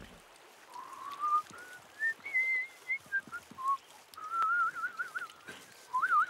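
A person whistling a wandering tune, with a quick warbling trill in the middle and another near the end.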